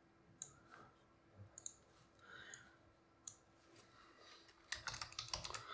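Faint computer mouse clicks and keyboard keystrokes: a few scattered single clicks, then a quicker run of key taps near the end as a word is typed.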